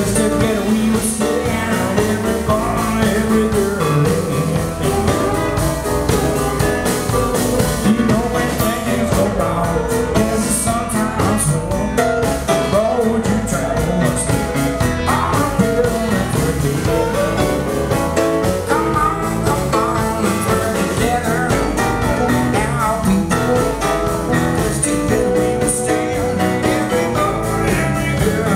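Live blues-rock band: a man sings while playing keyboard, backed by guitar and a drum kit.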